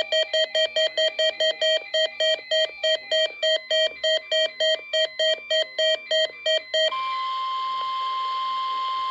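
Weather radio receivers alerting for a NOAA Weather Radio required weekly test: rapid electronic alert beeps, about four a second, with several pitches overlapping. About seven seconds in the beeping stops and the broadcast's steady warning alarm tone, near 1 kHz, plays through the radio speaker over static hiss.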